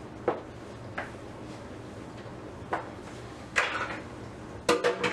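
Dishes being handled at a kitchen counter: a few scattered knocks and clinks, then a louder clatter of crockery with a short ringing tone near the end.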